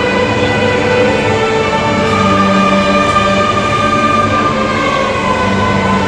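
Large youth string orchestra of violins and cellos playing slow, sustained chords, the held notes shifting every second or two.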